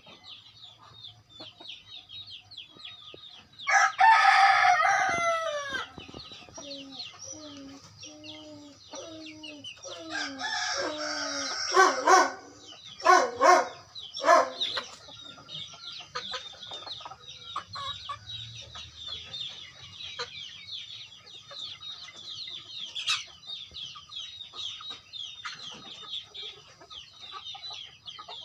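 A flock of native village chickens. A rooster crows loudly about four seconds in and again about ten seconds in, with a run of clucks between the crows and steady high-pitched cheeping throughout.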